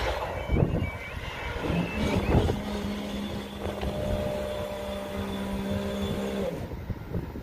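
Mk1 half-barrier machine's hydraulic pump motor running with a steady hum for about four and a half seconds as the barriers rise, stopping abruptly once they are up. A departing train's rumble fades away at the start.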